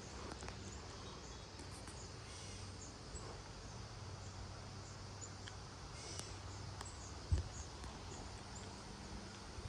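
Gusty wind outdoors, a steady rushing noise, with faint high chirps repeating through it and a brief low thump about seven seconds in.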